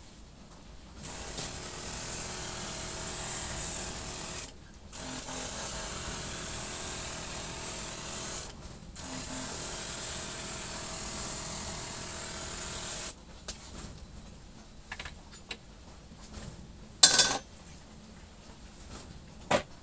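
Small electric sprayer running: a motor hum under the hiss of water spraying onto worm bedding, in three stretches with two short breaks. Then a few light clicks and a sharp knock near the end.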